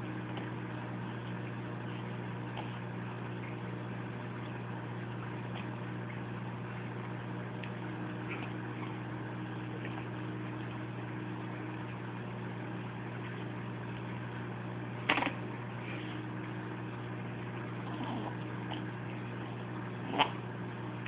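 Ceiling fan motor humming steadily, with two short knocks, one about fifteen seconds in and a louder one about five seconds later.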